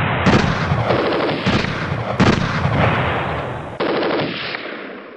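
Battle sound over war footage: rapid, sustained machine-gun fire with heavier shots mixed in. It changes character a couple of times as pieces are cut together, and fades out near the end.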